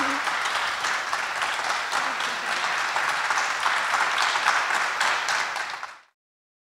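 Audience applauding: many hands clapping at once, steady throughout, until it cuts off abruptly about six seconds in.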